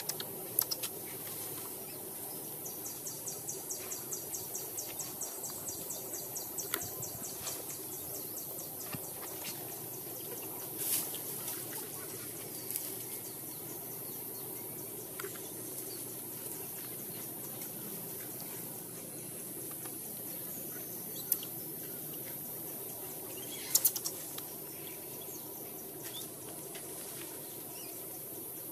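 Outdoor ambience with a steady background hum, over which a rapid series of ticks, about four a second, runs for several seconds. Scattered short, sharp chirps follow, the loudest about three-quarters of the way through.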